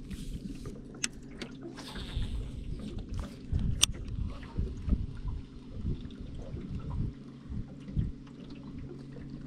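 Water lapping and sloshing against a small fishing boat's hull over a steady low hum, with a few sharp clicks, about a second and nearly four seconds in.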